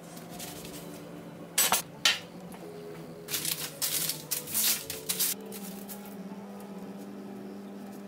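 Two sharp metallic knocks about half a second apart, typical of a metal baking tray being set down, then baking paper rustling and crinkling for about two seconds as it is smoothed onto the tray. Soft background music runs underneath.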